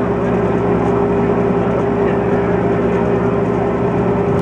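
A motor running steadily, a constant droning hum that holds one pitch without change.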